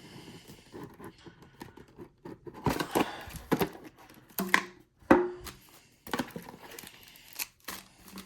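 Cardboard collectible card box and its wrapped card packs being handled: irregular rustling, scraping and knocks as the box is opened and packs taken out, with the two loudest knocks about four and a half and five seconds in.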